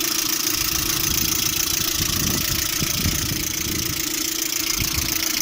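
Lada Priora engine idling with a knocking under the hood, which the owner places on the timing belt side and doubts is the hydraulic lifters.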